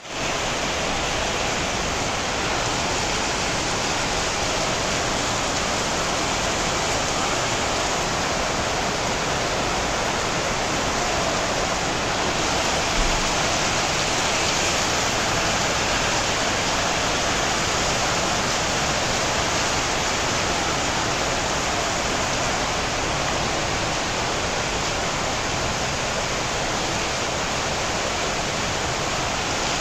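Heavy rain pouring down steadily, an even dense hiss, with water running off. There is one brief low knock about halfway through.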